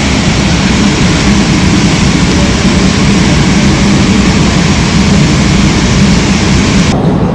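Airbus A350's Rolls-Royce Trent XWB jet engines running, a loud steady noise with a low hum underneath; near the end the sound turns duller as the high end drops away.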